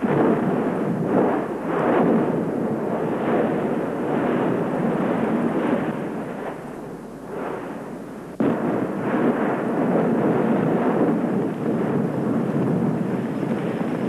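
Active volcano erupting: a continuous loud roar of rumbling blasts that surges and eases, jumping suddenly louder again about eight seconds in.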